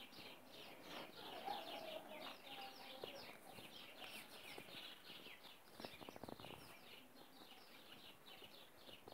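Faint chorus of small birds chirping, a dense run of quick, short falling chirps that goes on without a break. A few soft clicks about six seconds in.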